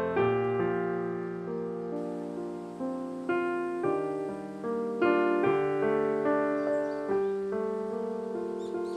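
Background piano music: single notes and chords struck every half second or so, each ringing and slowly fading.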